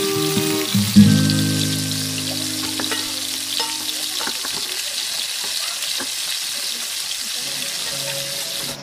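Hot oil sizzling steadily as flour-coated pieces deep-fry in a pot, with occasional light clicks as a metal turner moves them. Background music plays under it in the first half.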